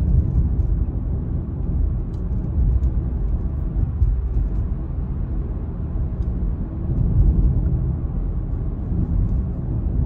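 Car driving, heard from inside the cabin: a steady low rumble of engine and tyre noise on the road.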